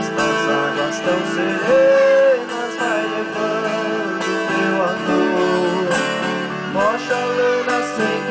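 Viola caipira and several acoustic guitars playing together: chords strummed under a melody with long held notes and a few sliding notes.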